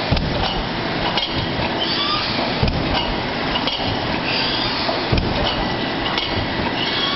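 Automatic plastic cup thermoforming machine with stacker running: a steady mechanical din with a sharp knock about every second to second and a half, and light clinking of plastic cups.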